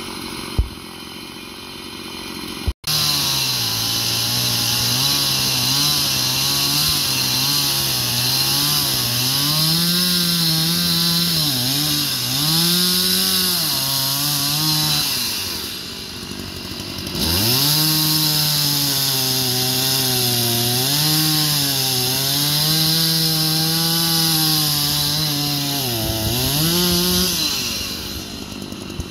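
Gas chainsaw cutting through a fallen tree trunk. The engine's pitch rises and dips as the chain bites into the wood. It eases off briefly about halfway through, cuts again, and drops back near the end.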